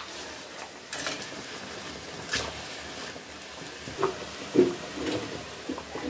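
Pakoras deep-frying in hot oil in a kadhai, a steady sizzle, with a few sharp metal clicks of a slotted spoon against the pan. A brief louder sound a little past halfway.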